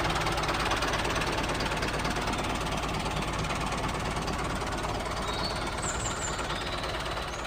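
The small engine of a mini tractor running steadily with a dense rattle.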